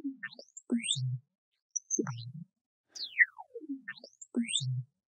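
A freehand brush-tool spectral selection of film dialogue in iZotope RX, played back on its own: thin whistling tones that swoop down and up in pitch, following the drawn line, with short low hums where the line dips to the bottom. The same sweep plays twice.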